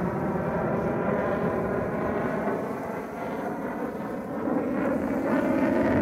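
Jet noise from an F-35A's single afterburning turbofan as the fighter flies its display at a distance: a steady, dense rumble that eases slightly midway and swells again near the end.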